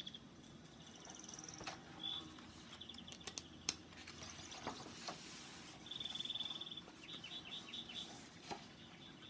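Birds chirping in short, high, repeated trills, faint against the background. A few sharp clicks and paper sounds come in the middle as a picture book's pages are turned.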